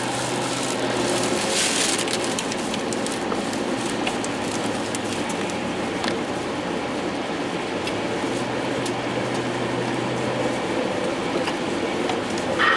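Steady road and tyre noise from inside a car on a wet, slushy highway, with scattered light ticks against the car.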